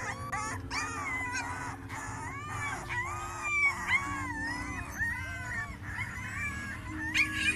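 Several young puppies whining and squealing, high wavering cries coming one after another without a break.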